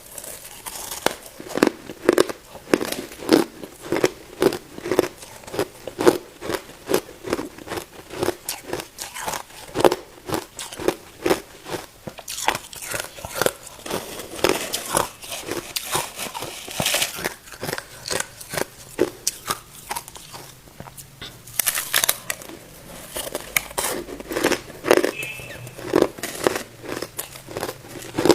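A person biting and chewing ice close to the microphone: a steady run of hard crunches, about two to three a second, later breaking into looser, louder crunching.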